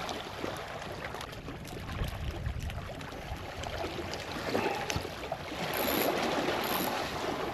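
Seawater washing and splashing, with small scattered clicks and knocks.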